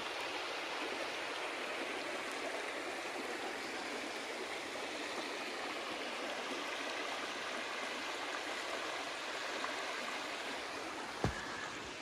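A shallow, mostly unfrozen river running over rocks: a steady rush of flowing water. A single short click about eleven seconds in.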